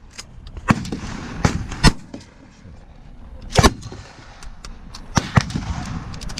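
Gunshots at an outdoor range: several sharp shots at uneven intervals, some louder and closer than others, the loudest two about a second and a half into the sound and a little past the middle.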